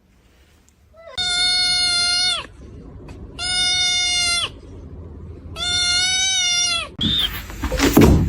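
An animal calling three times: long, steady, high-pitched calls of just over a second each, about a second apart. Louder, noisier sounds follow near the end.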